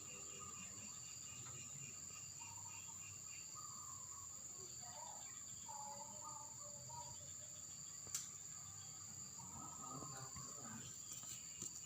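Steady high-pitched insect trilling, with faint scattered bird chirps and a single sharp click about eight seconds in.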